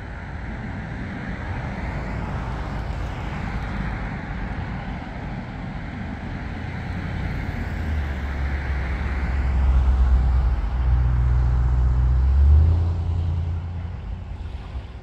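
A motor vehicle going by: a low engine hum builds to its loudest about two-thirds of the way through, then fades near the end, over a steady background rush.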